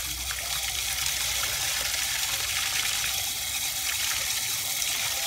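Water running steadily from an outdoor tap and splashing into a plastic basin, with eels being rinsed by hand under the stream.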